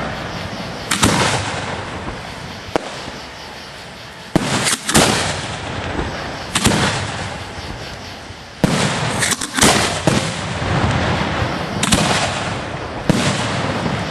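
Aerial fireworks display heard from the firing site: a string of sharp booms from shells launching and bursting, about a dozen of them at uneven gaps of a second or two, over a continuous rumble.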